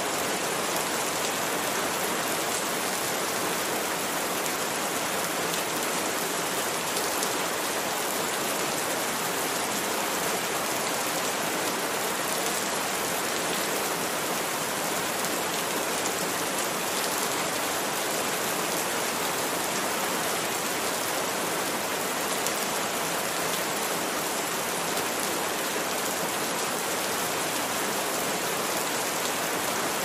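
Steady rain falling on tree leaves, an even unbroken hiss.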